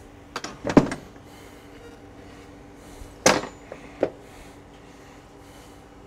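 Tools and a steel door hinge being handled on a workbench and vise: a few sharp knocks and clanks, two under a second in and the loudest about three seconds in, over a faint steady hum.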